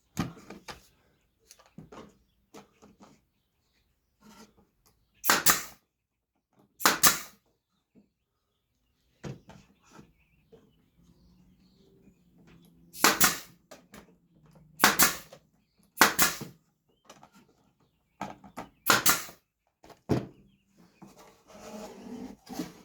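Brad nailer firing about six separate shots at irregular intervals, each a short, sharp burst, with quieter knocks of wood pieces being handled between them.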